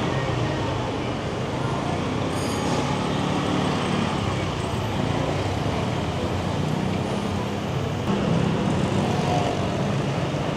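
Motorbike engine running steadily during a ride, mixed with road and surrounding traffic noise, with a brief high squeal about two and a half seconds in.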